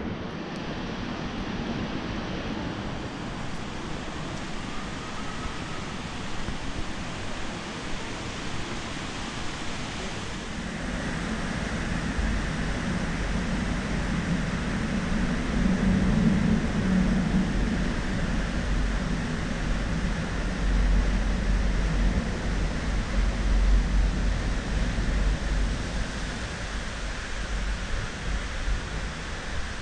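Airport terminal ambience: a steady hiss of ventilation and distant activity. A low rumble comes in about twelve seconds in and grows stronger.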